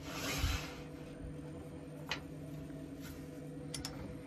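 Wood lathe running steadily with a low, even hum; a brief hiss at the start and a few light clicks over it.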